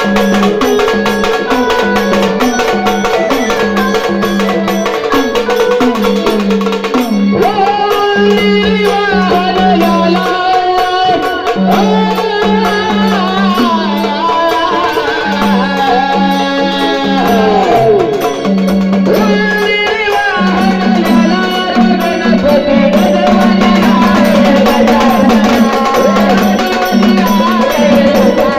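Marathi gondhal devotional music: hand drums keep a steady rhythm under a sustained drone-like accompaniment. About seven seconds in, a gliding, ornamented melodic line comes in above it.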